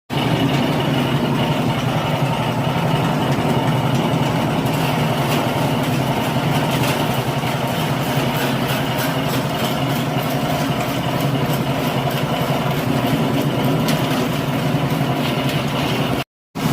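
Sand sieving machine running steadily: an engine drone with a fine rattle over it. The sound drops out briefly near the end.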